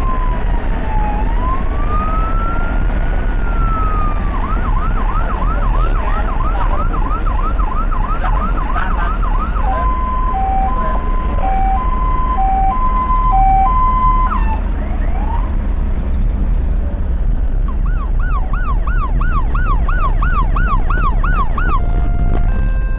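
Ambulance's electronic siren cycling through its modes: a slow wail, then a fast yelp of about three sweeps a second, then an alternating two-tone hi-lo, a short break, and the fast yelp again. Steady engine and road rumble runs underneath.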